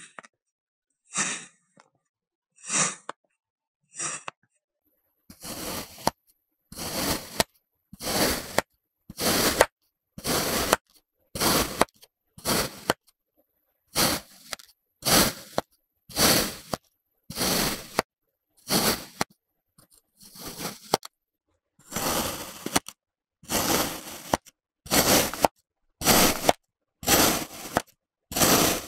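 Kinetic sand being cut with a blade: short slicing strokes, a few spaced ones at first, then regular cuts about once a second.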